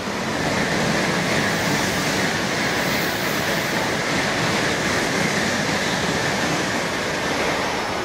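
Shinkansen bullet train running past at speed: a steady rushing noise that starts suddenly and eases off near the end.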